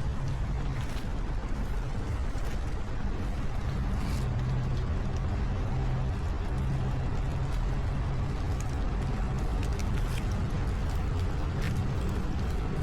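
Steady low rumble of road traffic, with scattered faint ticks.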